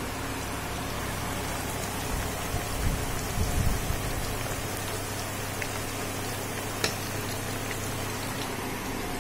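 Battered teasel gourd slices sizzling steadily as they fry in hot oil in a pan, with a few dull knocks about three seconds in and a single sharp click later on.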